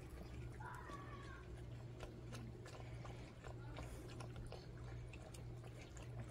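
Two puppies chewing and slurping chopped watermelon from a stainless steel bowl: a faint, irregular run of small wet clicks and smacks over a steady low hum.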